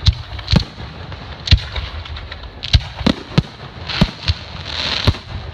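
Aerial fireworks shells bursting in quick succession, about nine sharp booms at uneven spacing, with a swell of hissing crackle about four and a half seconds in.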